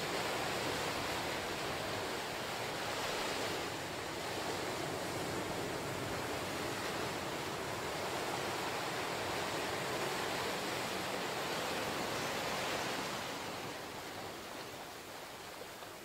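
Ocean surf breaking on shore rocks and washing up over a sandy beach, a steady rush of foaming water that swells now and then and eases off over the last few seconds.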